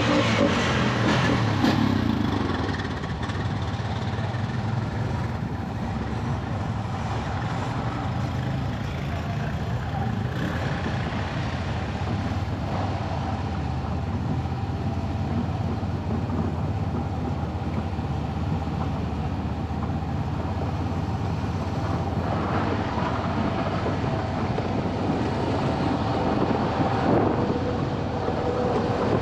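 A steady, low engine drone with a few faint steady tones above it, running evenly throughout.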